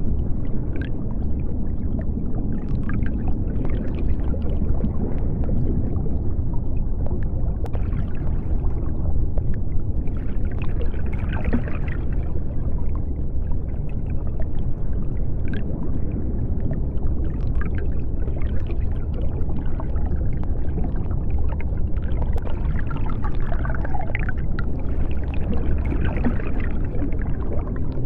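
Underwater ambience: a steady deep rumble with scattered bubbling and a few faint clicks.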